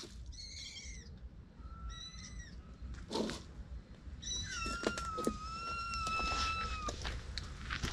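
Baby kittens mewing: two short high cries in the first few seconds, then one long drawn-out mew lasting about two and a half seconds. A few light knocks are heard among them.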